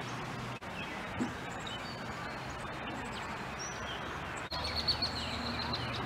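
Small songbirds chirping faintly over a steady outdoor background hiss, with a thin high held call from about two-thirds of the way in.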